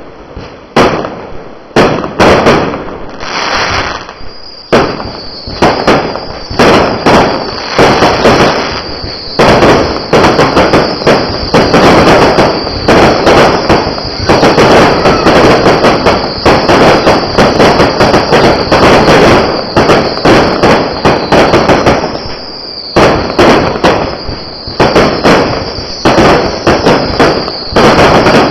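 Fireworks going off: separate loud bangs at first, then rapid, near-continuous volleys of bangs and crackle from about a third of the way in, with a brief lull near the end.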